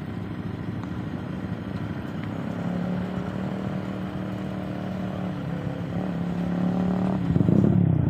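An engine running steadily, its hum growing louder toward the end and jumping up a little after seven seconds.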